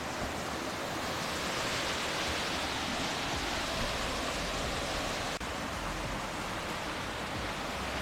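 Steady rush of a waterfall cascading down rock ledges into a pool.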